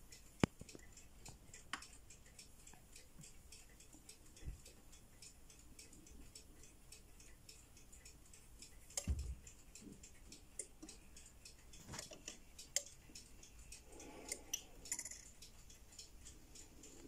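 Pioneer PL-570 automatic turntable's tonearm mechanism: a low thump about nine seconds in, then scattered mechanical clicks and clunks as the arm lifts off the record and returns to its rest. A steady, fast, even ticking runs underneath.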